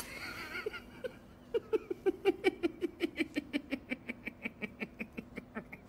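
A cartoon character's rapid, sustained laugh: a long string of short 'heh' pulses starting about a second and a half in, slowly falling in pitch.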